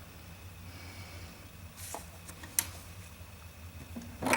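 Husqvarna Viking Designer 1 sewing machine being switched on: a few soft clicks over a low steady hum, and right at the end its start-up sound begins.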